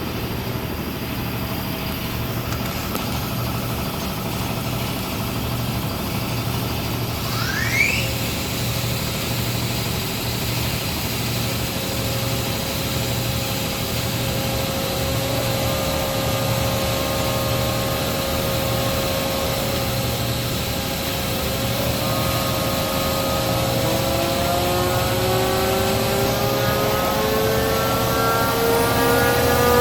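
Hydraulic test bench running a Rexroth AP2D25 tandem piston pump with its gear pump, unloaded at no pressure. A steady mechanical running sound carries a whine that rises in pitch from about two-thirds of the way through, as the pump comes up to speed.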